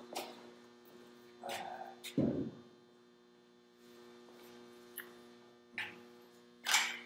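Steady electrical mains hum, with about half a dozen short knocks and clatters of a length of metal shower rod being handled and set in a bench vise; the loudest clatter comes near the end.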